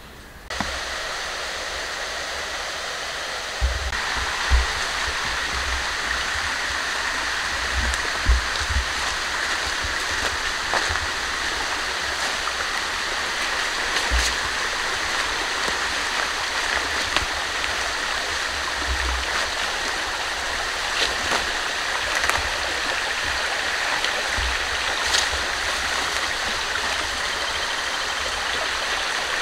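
Small rocky forest stream running, a steady rush of water, with scattered low thumps on the microphone.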